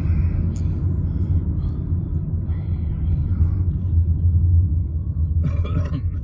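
Low, steady rumble of a moving car's engine and tyres heard inside the cabin, with a short burst of noise just before the end.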